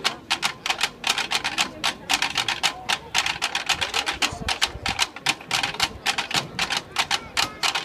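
A drum line of several marching snare drums playing a steady cadence: a quick, even run of sharp, crisp strokes with no break.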